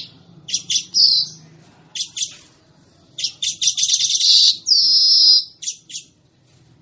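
Weaver (manyar) song: quick dry ticks and short buzzy notes that build to a dense chattering buzz about three seconds in, ending in a long drawn wheezy buzz.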